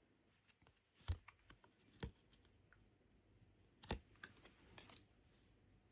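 Photocards being handled and flipped over in the hands: faint, scattered clicks and taps of card against card, the sharpest about one, two and four seconds in.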